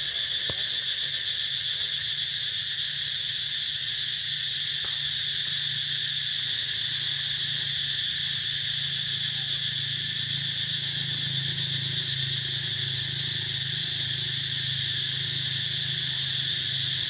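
Steady, continuous chorus of insects buzzing high in the trees, unbroken throughout, with a faint low hum underneath.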